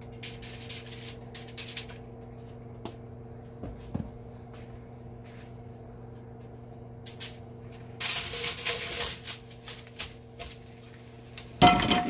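Aluminium foil crinkling and rustling in short bursts as it is handled and pressed into a pan, with a louder stretch of rustling past the middle, over a steady low hum. A loud clatter near the end.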